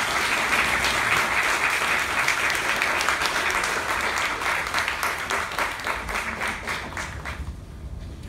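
Theatre audience applauding at the end of a comedy sketch, the clapping dying away about seven seconds in.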